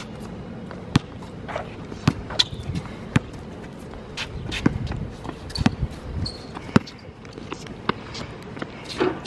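Basketball being dribbled on a hard outdoor court: sharp, single bounces about once a second.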